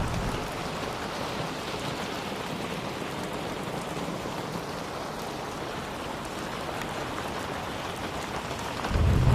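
Steady, heavy rainfall. A low rumble of thunder dies away in the first half-second, and another rumble sets in near the end.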